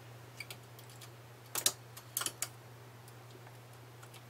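Metal stitch-transfer tool and latch needles clicking on a knitting machine's needle bed as stitches are moved from needle to needle: a few light clicks, the loudest a quick pair about a second and a half in and another pair about two seconds in, over a faint steady hum.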